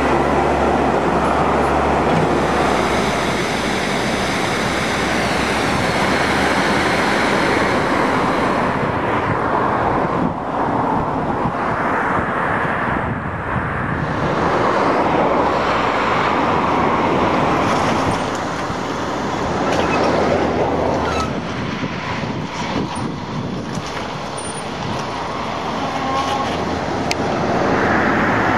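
Small hydraulic excavator running: a steady engine drone with a high whine over it for the first several seconds. After that comes a rougher rushing noise that swells and dips.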